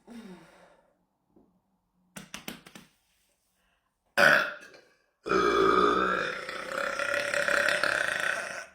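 A woman burping: a short loud burp about four seconds in, then one long drawn-out burp lasting over three seconds. A few quick soft clicks come about two seconds in.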